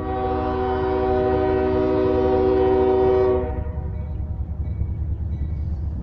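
CSX freight locomotive's air horn sounding one long blast, several tones together held for about three and a half seconds, then cut off, over the low rumble of the approaching diesel train.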